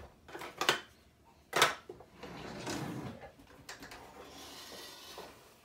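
Glass mixing bowl knocking against a glass casserole dish as the chicken mixture is tipped out: two sharp clinks about a second apart, the second louder, then a softer stretch of the mixture sliding and scraping out of the bowl.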